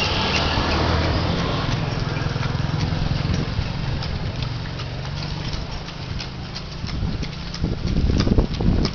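Horse hooves clip-clopping on the street as a horse pulls a cart, over a steady low motor-engine hum. The hoofbeats and low thumps get louder near the end.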